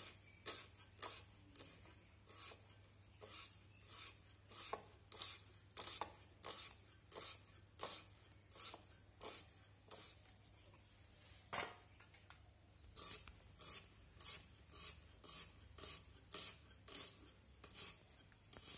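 An onion being sliced thin against the fixed blade of an aruvamanai, the traditional Tamil floor-mounted cutting blade. The short, crisp cuts come about twice a second.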